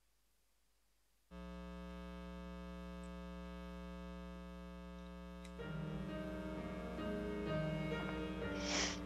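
Near silence, then just over a second in a keyboard begins holding a steady sustained chord; about halfway through a melody of changing notes starts over it, with a brief hiss near the end.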